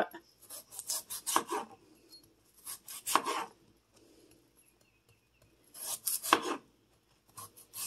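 A kitchen knife slicing through raw peeled potatoes on a plastic cutting board, in about four short bursts of cutting with quiet pauses between them.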